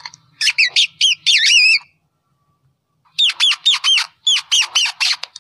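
Rat squeaking: rapid runs of short, high-pitched squeaks. They break off for about a second in the middle, then start again.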